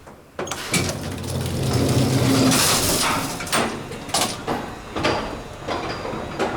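Vintage Otis elevator answering a call to the fourth floor: the doors slide shut with a sudden start about half a second in, then a low hum and rush of noise as the car gets under way, followed by several clanks.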